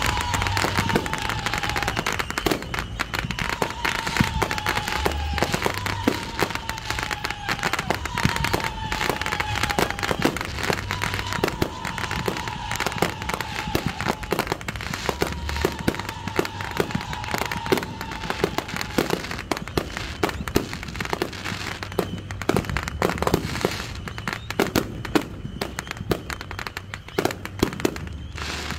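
Consumer fireworks finale with a dense, continuous run of launches, pops and crackling bursts. Over the first two-thirds a series of falling whistles sounds every second or two, then the pops and crackle carry on alone.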